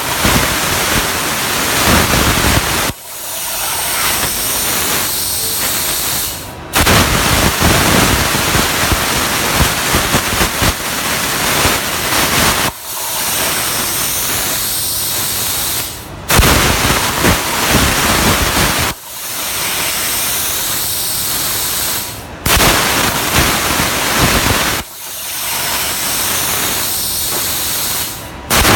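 CNC plasma cutter at work: the plasma arc's loud hiss comes in repeated stretches of three to six seconds, each starting and stopping abruptly. Between them are quieter gaps of about three and a half seconds with a wavering high whine.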